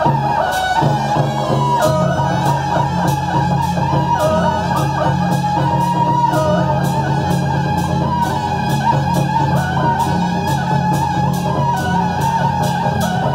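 Loud music with a steady drum beat, about two strokes a second, over sustained melody lines.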